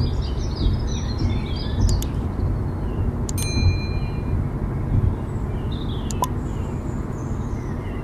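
Steady low rumble of road and engine noise from a car driving at speed, heard from inside the cabin. A click and a short, bright chime sound about three and a half seconds in, from a subscribe-button overlay.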